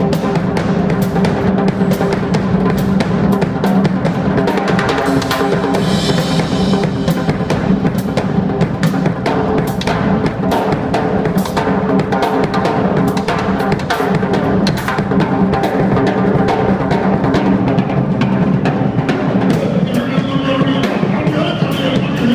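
Drum kit played fast and loud, with a dense stream of snare, bass drum and cymbal hits over a steady low drone. Near the end a higher sound joins from a vocalist at the microphone.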